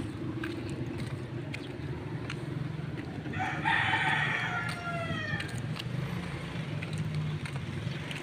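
A rooster crowing once, a call of about two seconds starting a little over three seconds in and falling in pitch at its end, over a steady low hum.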